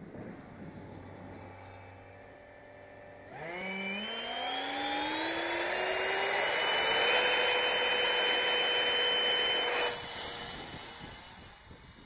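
Whistle-modified 70 mm electric ducted fan on an RC jet, heard from a camera on the plane. It hums quietly at idle, then about three seconds in it spools up to full throttle with a rising, whistling whine for the take-off run. The throttle is cut sharply near the ten-second mark and the whine dies away.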